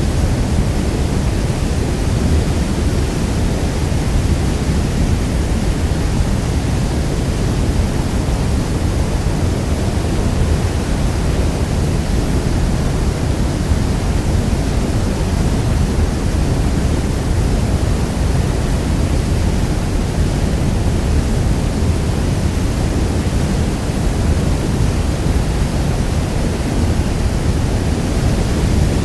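Niagara Falls: a waterfall's steady, heavy roar of falling water, deep and unbroken.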